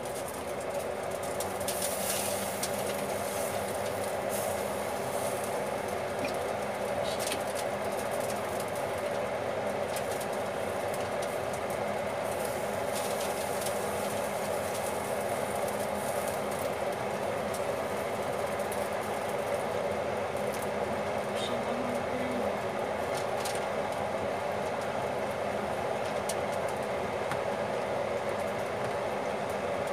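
A kitchen appliance fan running with a steady whir, with a few light clicks of metal tongs on the oven's wire rack as chicken pieces are laid on it.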